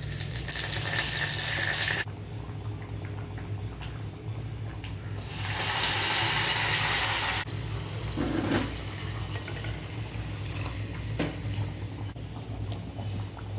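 Curry leaves sizzling in hot oil in a small clay pot of tempering: a burst of hissing as they go in, a second, louder burst about five seconds in, then quieter sizzling with a few small knocks.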